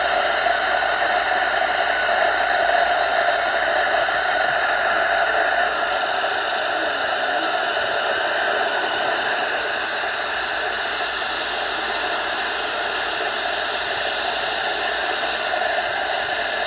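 Steady rushing static from an SDR receiver's FM audio on the 11-metre CB band, with no speech on the channel. It is slightly louder for the first few seconds, then holds even.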